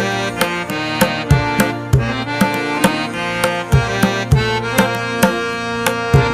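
Background music: a quick hand-drum rhythm played over a sustained melody from a reed-like keyboard or wind instrument.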